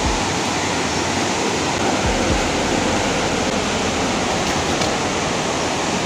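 Steady rush of a waterfall: an even wash of falling water.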